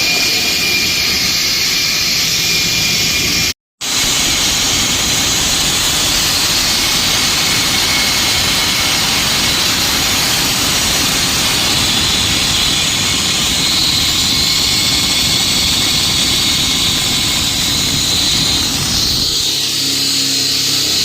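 Concrete-cutting machine running: a loud, steady high whine over grinding noise. It cuts out briefly a few seconds in, and its character changes near the end.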